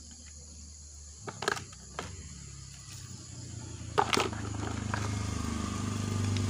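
Small stones clicking and knocking as they are set by hand into a plastic plant pot: a few short, sharp knocks, the loudest about four seconds in. A low steady hum grows louder underneath over the last few seconds.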